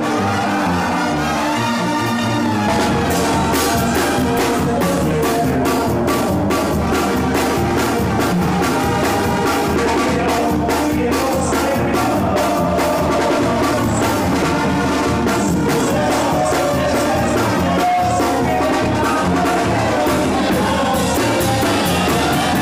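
Mexican banda brass band playing live: trombones and other brass over percussion, the full band with its low end and drums coming in about two and a half seconds in.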